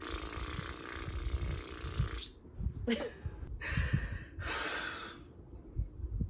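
A woman breathing audibly through her mouth: one long breath of about two seconds, then a couple of shorter breaths past the middle.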